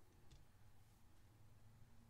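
Near silence: low room tone, with one faint click about a third of a second in as plastic dice are pushed into a row on a cloth-covered table.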